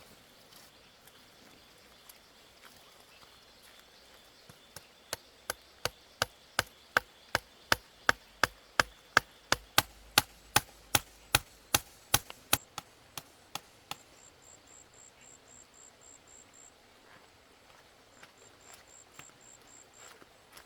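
Repeated chopping blows on wood, about two to three strokes a second, growing louder and then fading. Afterwards an insect chirps faintly in short high pulses.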